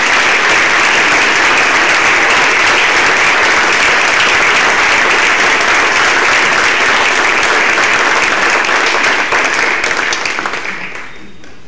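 A roomful of people applauding steadily, thinning out and dying away near the end.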